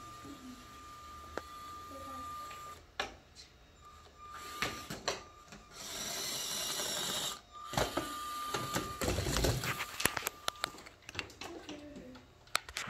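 Small LEGO robot's electric motors whining as it drives and works its attachments, a steady high tone that stops and starts several times. Clicks and knocks of plastic LEGO parts and pieces being handled, more of them in the second half.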